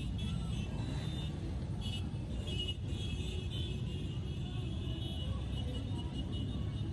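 Many motorcycle and trike engines running together as a large group rides past slowly, making a steady, dense rumble. Music can be heard along with the engines.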